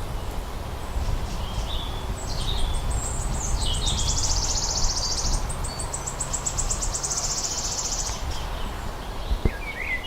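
A small songbird sings a long, fast, high trill lasting about six seconds, led in by a few short notes, with a brief call near the end. A steady low rumble runs underneath.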